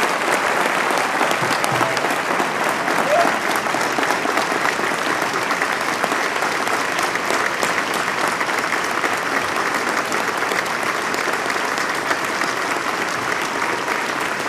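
Large crowd applauding steadily, a dense, continuous sound of many hands clapping.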